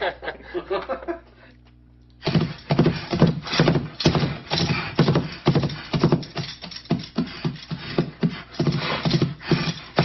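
Playback of Foley-recorded horse hoofbeats with a bridle-jingle track laid over them: a rapid, continuous run of clip-clop strikes that starts about two seconds in after a short lull.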